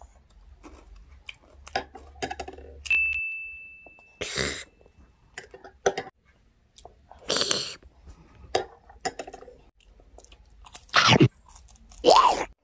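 A person eating with a metal spoon: chewing and crunching, spoon clicks, and one clink against the ceramic mug that rings on for about two seconds. Near the end come two loud short bursts, the loudest sounds here.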